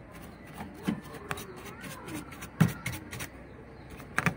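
Bristle brush scrubbing dust off a CRT television's circuit board in short, irregular strokes, with a few knocks against the board and heat sink; the loudest knock comes about two and a half seconds in.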